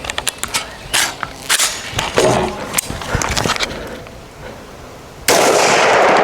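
A string of pistol shots, sharp reports about half a second apart, followed about five seconds in by a loud rushing noise that runs on past the end.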